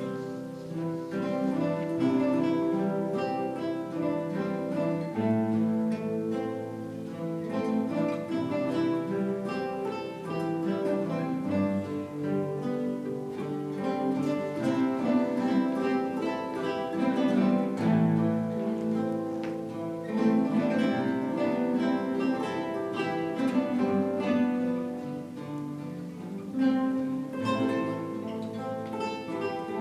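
A classical guitar ensemble playing together: many plucked guitar parts layered into one continuous piece of music.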